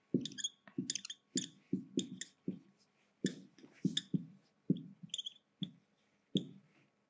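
Marker pen writing on a whiteboard: an uneven run of short strokes, about three a second, with high squeaks as the letters are drawn.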